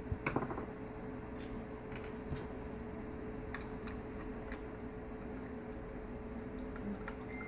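A screwdriver working small screws in the plastic back of a VDO speedometer housing: a quick cluster of clicks about half a second in, then scattered light ticks, over a steady background hum.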